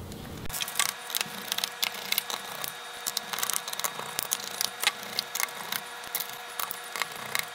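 Small Phillips screwdriver backing screws out of a laptop's plastic bottom case: a steady run of small, irregular clicks and ticks as the bit turns in and lifts from the screw heads.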